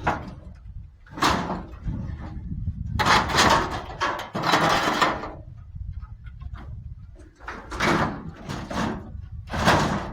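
Scrap metal being shifted and pressed down on a loaded truck: a run of irregular bangs, clatters and scraping noises, some short and some lasting about a second, over a steady low rumble.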